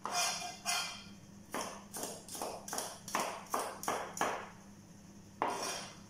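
Chef's knife chopping red bell pepper on a plastic cutting board: a run of about ten quick, uneven knocks, then a pause and one last chop near the end.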